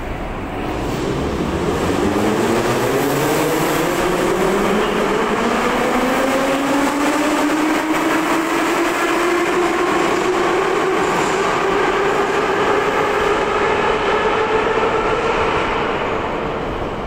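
Metro train pulling out of the station: its traction motors whine, rising in pitch for the first several seconds and then holding steady, over the rumble of the wheels on the rails. The sound fades a little near the end as the last car leaves.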